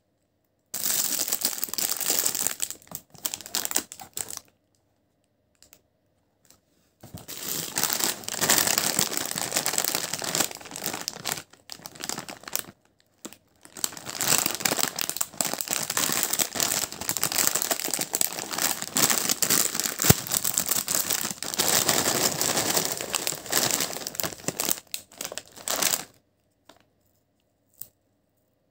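Kurkure Masala Munch crisp packet crinkling as it is handled and torn open, in three long bouts of dense plastic crackling, with a few small clicks near the end.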